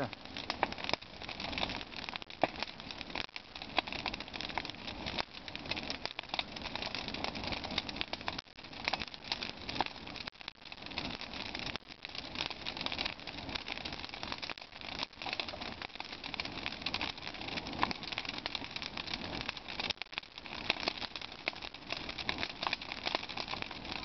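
Bonfire of old wooden boards and dry branches burning, a dense run of irregular crackles and pops over the rush of the flames.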